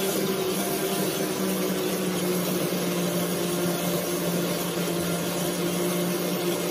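Electric blender running steadily, whirling a liquid batter of eggs, condensed milk, milk and cream into a vortex; a loud, even whir over a constant low hum.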